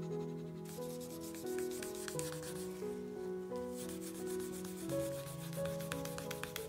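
A cloth rubbed in quick back-and-forth strokes over a piece of leather, with a short pause about three seconds in. Background music with a melody plays throughout.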